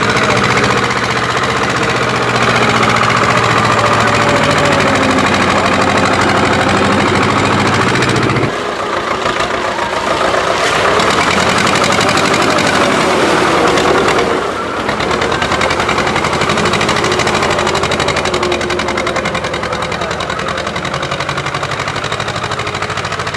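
Tractor engine running under load and revving, its pitch rising and falling, with sudden changes in the sound about eight and a half and fourteen and a half seconds in.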